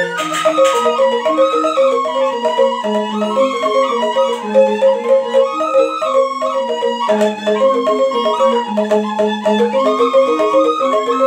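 Balinese rindik ensemble playing: two slendro-tuned bamboo rindik xylophones struck with mallets in quick repeated, interlocking note patterns, with bamboo suling flutes carrying a held melody above.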